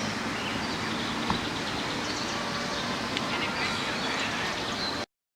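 Steady outdoor background noise with faint high bird chirps and a few small ticks, cutting off abruptly about five seconds in.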